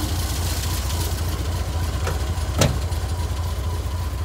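Porsche 356 B Super 90's 1582 cc four-cylinder boxer engine idling with a steady low rumble. One sharp knock sounds about two and a half seconds in.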